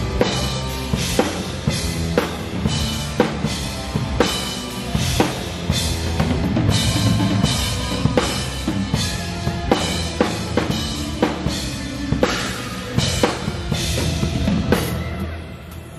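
Live rock band rehearsing, with the drum kit to the fore: kick, snare and cymbals played in a steady beat over bass notes. The playing drops away briefly near the end.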